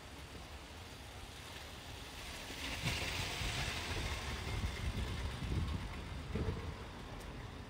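A vehicle passing, its noise swelling about two and a half seconds in and fading away after about six seconds.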